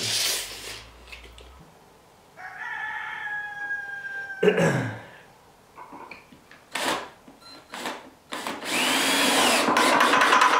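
A rooster crows once, a single long call falling slightly in pitch, about two and a half seconds in. From about eight and a half seconds a cordless drill runs steadily at speed, loudest of all, boring a hole into a rough-sawn wooden door through the hole of a sliding barn-door hanger strap.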